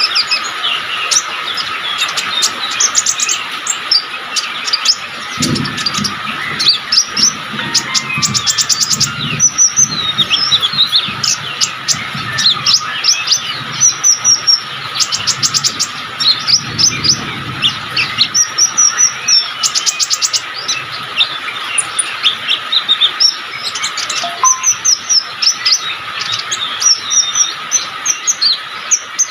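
A 'konin' songbird singing continuously in full voice: a rapid string of high chirps broken by bursts of fast trills, over a steady high whine.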